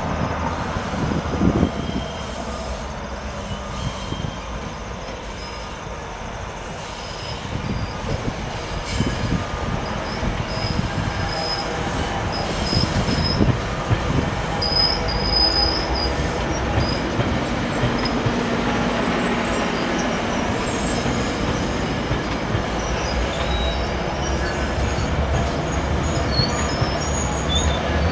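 GO Transit bilevel passenger train rolling slowly into the station, cab car first, its wheels running over the rails with a steady low rumble. From about halfway on, short high metallic squeals come and go as the coaches pass close by.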